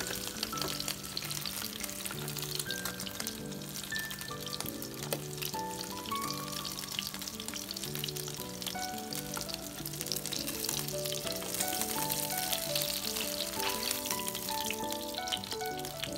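Bluefish fillets frying in hot cooking oil: a steady, dense crackling sizzle. Background music with a slow melody plays underneath.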